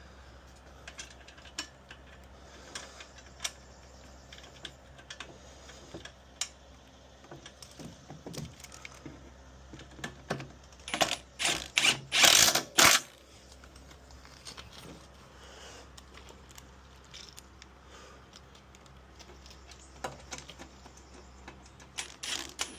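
Hand tools and metal fasteners being handled: scattered clicks and clinks, with a cluster of short, loud rattling bursts about eleven to thirteen seconds in.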